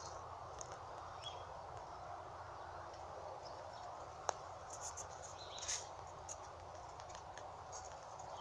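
Quiet outdoor ambience: a steady low background hiss and rumble with scattered faint, short high-pitched chirps and ticks, and one sharp click a little past four seconds in.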